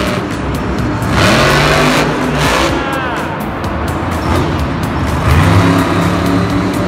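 A motor vehicle's engine revving, its pitch rising and falling, over background music, with stretches of hiss about a second in and again near the end.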